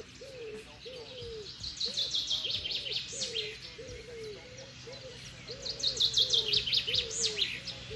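Songbirds singing: two fast trilled phrases that fall in pitch, each about two seconds long, one about two seconds in and one about six seconds in, over a continuous run of short, lower repeated notes.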